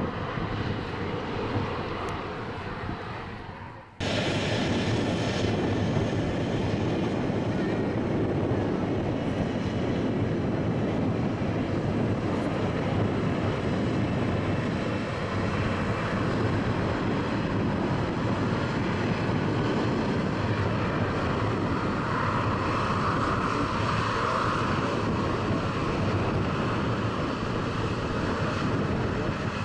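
Ryanair Boeing 737-800's jet engines at high power as it rolls down the runway, fading over the first few seconds. After an abrupt cut about four seconds in, steady airliner jet engine noise from aircraft on the runway, with a brief whine standing out about three-quarters of the way through.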